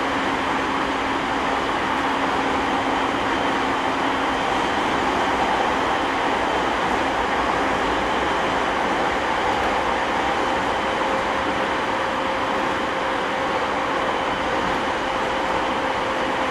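Running sound of a 209 series 500 subseries electric commuter train heard on board while it travels at a steady speed: a constant rush of wheel, rail and air noise with a few faint steady hums.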